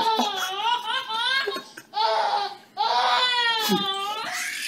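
A baby laughing in long, high-pitched squealing bursts, with two short breaks for breath.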